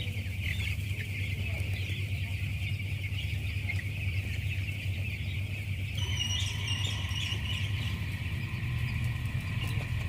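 A large flock of week-old broiler chicks peeping continuously, many overlapping high chirps, over a steady low hum. A thin steady whine joins about six seconds in.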